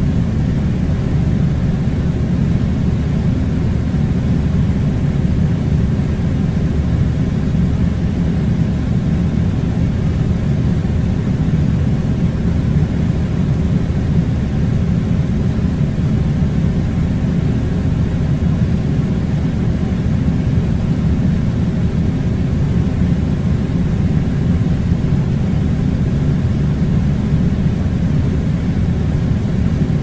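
Steady, loud, low rushing rumble of air from a strong fan or air-conditioning blower.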